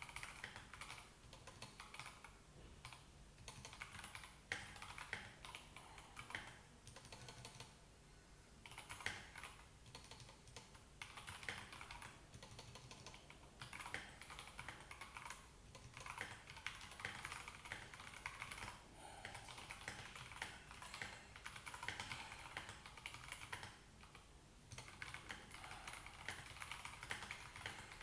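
Typing on a Royal Kludge RK84 mechanical keyboard with Gateron Yellow linear switches and thick XDA-profile PBT keycaps: rapid runs of key clacks with a few short breaks.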